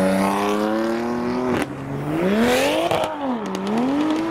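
Performance car engine accelerating hard, its revs climbing steadily until a sharp drop in pitch about one and a half seconds in as it shifts up. The revs then rise and fall again.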